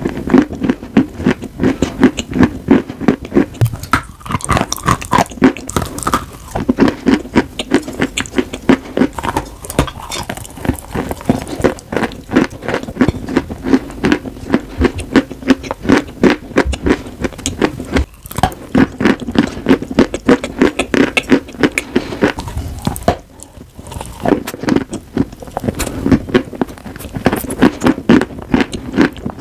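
Close-miked chewing of edible chalk and clay chunks: dense, rapid crunches several a second, with a short pause about three quarters of the way through.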